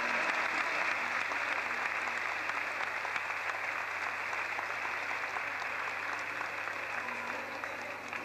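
Audience applause: many people clapping together in a dense, steady patter that eases off slightly near the end.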